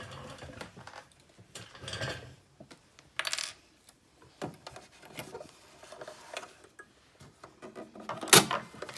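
Hands handling fabric at a sewing machine: scattered rustles and light knocks and clicks, with one sharp loud click near the end.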